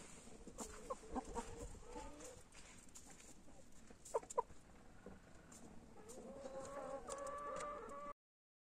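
Domestic hen settled on a straw nest before laying, making low drawn-out clucks, with two short sharp calls about four seconds in. The sound cuts off abruptly near the end.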